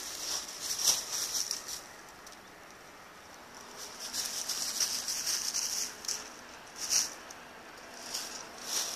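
Footsteps crunching and rustling through dry fallen leaves and grass, in uneven bursts, with two sharper crunches, one about a second in and one about seven seconds in.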